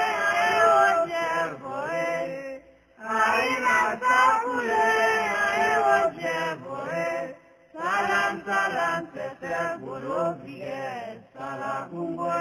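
A Vodou song: voices chanting a sung line in phrases, with two short breaks between them.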